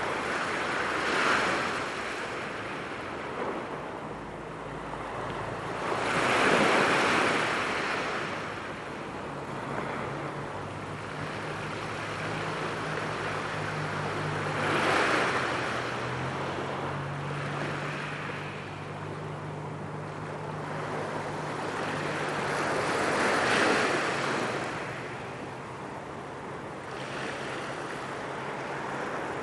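Small sea waves washing onto a pebble beach. The surf swells up and falls back four times, every several seconds.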